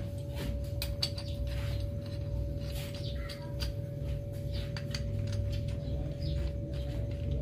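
Light metal clicks and taps, irregular and fairly frequent, as bolts are handled and fitted into the caliper mount of an aluminium inverted motorcycle fork. A steady low hum runs underneath.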